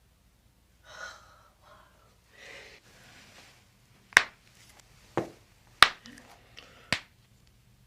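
A person breathing out audibly twice, then four sharp clicks or cracks spread over about three seconds.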